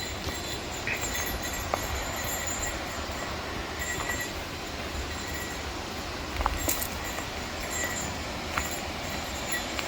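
Steady rushing outdoor noise, with scattered light clicks and a few short, high chirps over it.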